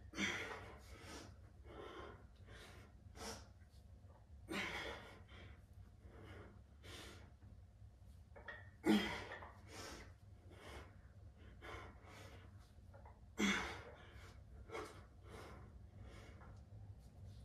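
A man breathing hard under exertion: short, sharp breaths about every second, with a louder forced breath about every four and a half seconds.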